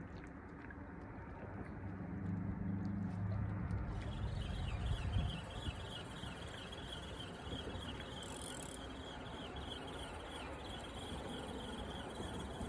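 Fishing reel being cranked as a hooked fish is reeled in: a fast, evenly repeating chirring whirr that starts about four seconds in and keeps on nearly to the end. A low hum lies underneath during the first few seconds.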